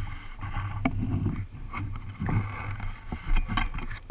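A Hobie sail kayak on the water: a low rumble with scattered knocks and splashes against the hull.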